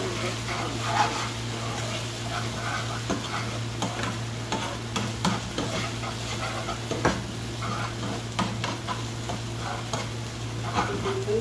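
A spatula stirring and scraping onion, tomato and red chili paste frying in a frying pan, with a steady sizzle and frequent short knocks of the spatula against the pan. A steady low hum runs underneath.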